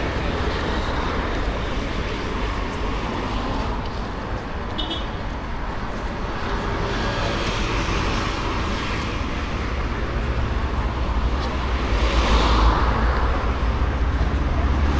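Road traffic going by, a steady noise with a low rumble; one vehicle passes close, swelling and fading about twelve seconds in.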